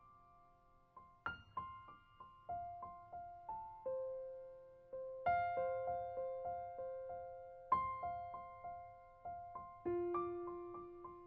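Background solo piano music: a slow melody of single struck notes, each fading out, with a louder chord about every two and a half seconds.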